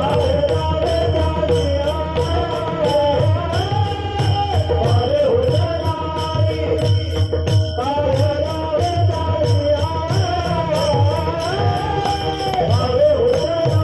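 Devotional kirtan singing: a voice sings a wavering melodic line over steady, rapid clashes of small hand cymbals and regular low drum beats.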